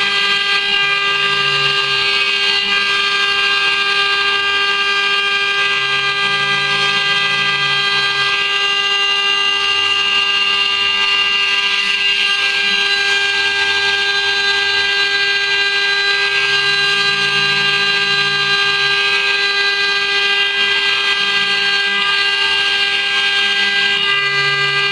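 CNC router spindle running at a steady high speed, giving a constant whine with many overtones, while the bit cuts into copper with a continuous hiss. A faint low hum swells and fades every few seconds.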